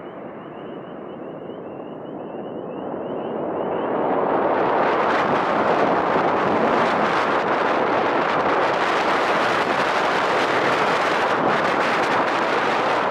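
Jet airliner's engine noise swelling over about four seconds into a loud, steady rush as the aircraft passes close by on landing, with a faint high whine at first.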